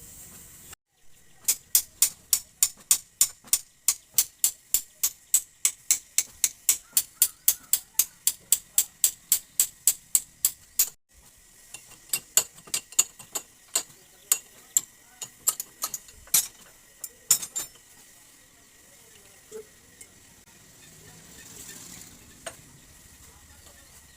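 Rapid sharp metal-on-metal taps from work on a motorcycle rear shock absorber. They come about three or four a second for roughly ten seconds, then turn sparse and irregular for several more seconds and stop.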